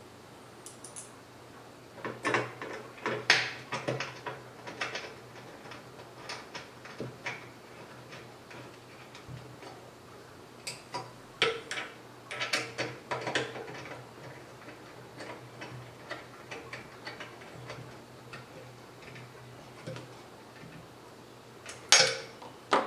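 Irregular small metal clicks and taps of a hex key working screws into a Y-axis mount bracket on an aluminium-extrusion frame, with a louder clatter near the end.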